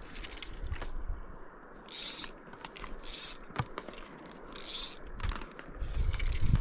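Fly line being pulled out by hand, three quick pulls about 2, 3 and 4.5 seconds in, each a short zipping scrape, with small clicks from handling the line and rod.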